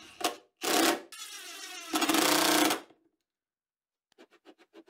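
Cordless impact driver driving a screw into plywood in short bursts, with a quieter motor whir between them; the longest, loudest burst comes about two seconds in, then it stops. Faint rapid ticking starts near the end.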